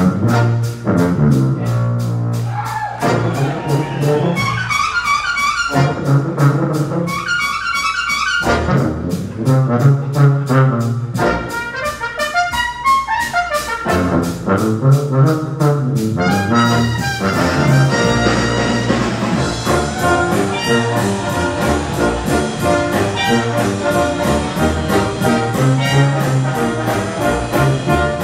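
Brass band playing a rock-and-roll number, with brass chords and a bass line over a drum kit keeping a steady beat. The band fills out and plays fuller about two-thirds of the way in.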